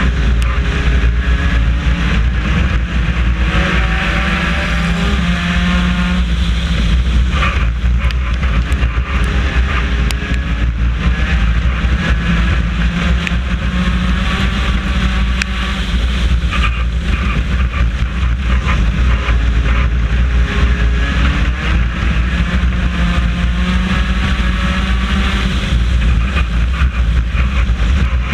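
A four-cylinder race car's engine heard from inside the car at racing speed. It revs up and drops back again and again, as it would between straights and turns, over a loud, steady low rumble.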